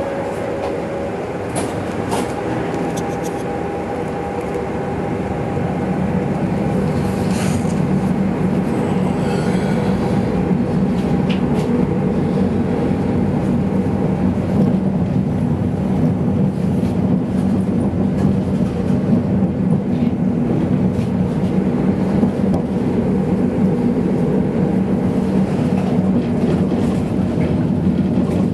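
Helsinki tram pulling away and running along street tracks: a steady electric motor hum with wheel-on-rail noise that grows louder over the first several seconds as it picks up speed, with a few scattered clicks and rattles.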